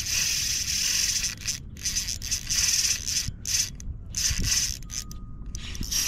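Spinning reel's drag buzzing in irregular spurts as a hooked fish pulls line off against it.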